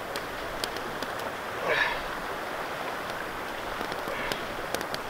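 Floured brook trout frying in butter in a pan over a campfire: a steady sizzle, with the wood fire crackling and popping. There is a brief louder burst about two seconds in.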